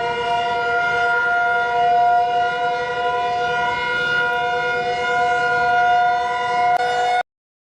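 Civil-defense-style emergency alert siren holding a steady two-note chord. It cuts off suddenly near the end.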